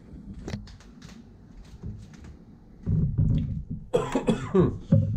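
Light knocks and steps as someone walks carrying the camera. Then, from about three seconds in, a man makes loud, throaty, wordless sounds close to the microphone.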